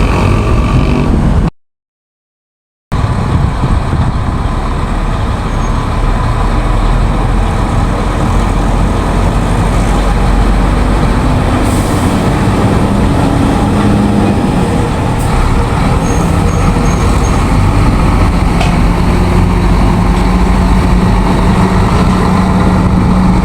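Heavy truck engine running steadily with a loud rumble. The sound cuts out completely for about a second and a half near the start.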